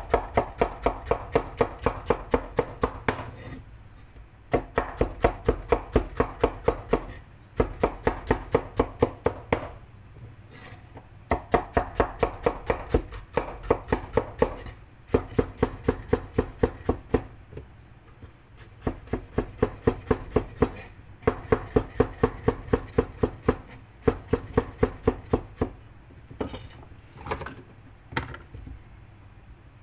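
Knife chopping food on a cutting board in runs of quick, even strokes, about four a second, each run lasting a few seconds with short pauses between.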